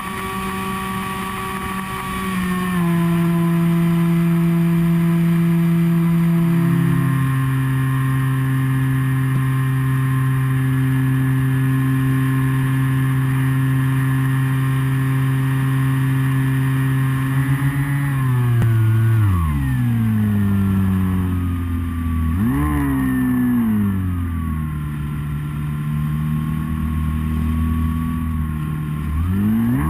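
Electric motor and propeller of a Skywalker FPV model airplane, heard from the onboard camera: a steady whine that drops in pitch in a couple of steps as the throttle is eased back. Later the pitch swoops down and back up several times as the throttle is cut and reapplied.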